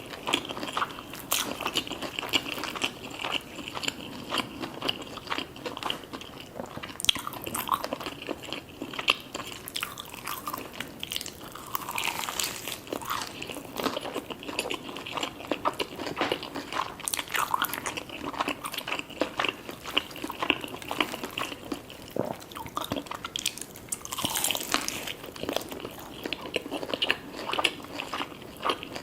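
Close-miked chewing and crunching of crispy fried food, many irregular crackly bites and chews.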